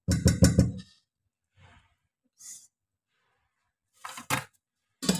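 A short voiced sigh lasting under a second, then a few sharp knocks and clicks about four and five seconds in.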